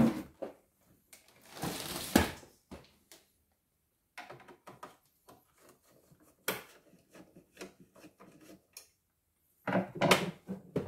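Scattered clicks and knocks of a screwdriver and hands on the plastic housing of a domestic embroidery machine as screws are undone, with a denser run of knocks near the end.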